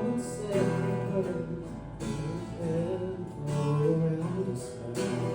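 Background music led by strummed acoustic guitar, with a gliding melody line over it.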